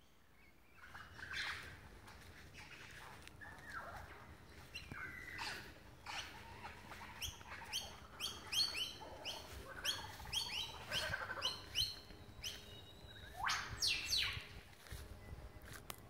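Lyrebird singing a varied song of whistled and sweeping notes: a rapid run of quick repeated sweeps in the middle, and loud falling whistles near the end.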